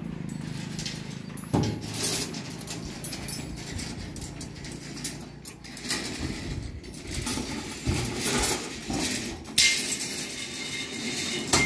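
Steel reinforcing bars and stirrups clinking and knocking irregularly as they are handled on slab formwork. Near the end there is a hiss lasting about two seconds.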